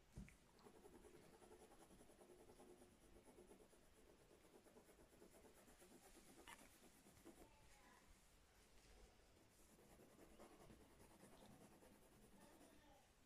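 Pencil drawing on paper: faint, quick scratching strokes of the lead on the sheet.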